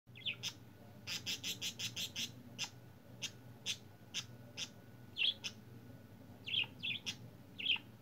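Pet budgerigars chirping in a cage: a quick run of short chirps about a second in, then scattered single chirps, with a few louder falling calls in the second half.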